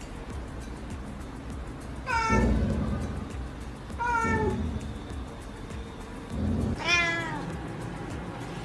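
Domestic cat meowing three times, about two seconds apart, each call falling in pitch.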